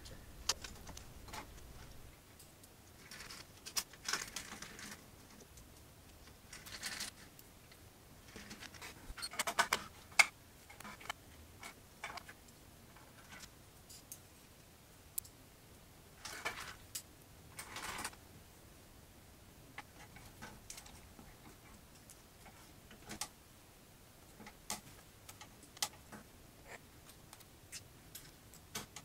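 Screwdriver and hands at work on the opened Beosound 9000 CD player as it is screwed back together: scattered light clicks and ticks with short scrapes of plastic and metal parts, the sharpest click about ten seconds in.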